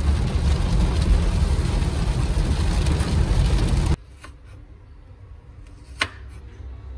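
Heavy rain beating on a car's roof and windshield, heard from inside the cabin as a loud, even hiss with a deep rumble beneath; it cuts off suddenly about four seconds in. After that, much quieter, a kitchen knife slicing carrot on a wooden cutting board, with one sharp chop about six seconds in.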